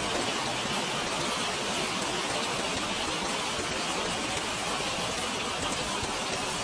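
Rain falling steadily, an even hiss with no thunder or single impacts.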